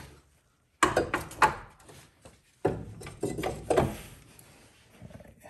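Metal clinks and knocks of hand tools against a car's rear brake caliper and rotor, in two quick clusters: one about a second in, another from just before 3 s to about 4 s.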